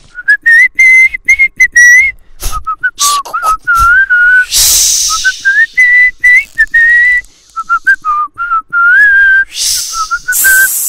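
A person whistling a wavering tune by mouth in short phrases, the pitch rising and dipping, with two breathy rushes of air, one about five seconds in and one near the end.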